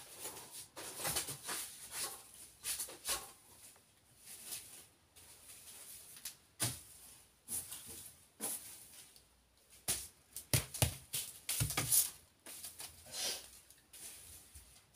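Irregular light tapping and scratching of chicks' beaks and feet on feed in a plastic basin, with a cluster of sharper taps about ten seconds in.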